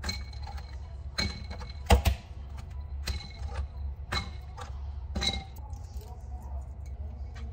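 Metal egg tongs clinking against a glass bowl of ice water as boiled eggs are dropped in, with short ringing clinks about a second apart and a heavier knock about two seconds in. A low steady hum runs underneath.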